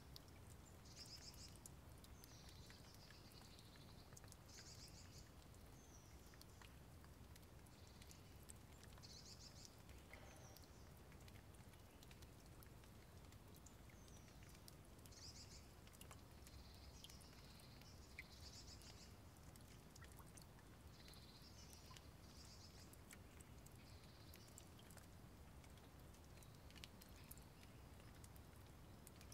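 Faint birdsong outdoors: short chirping phrases every second or two, with scattered light ticks and a low steady rumble underneath.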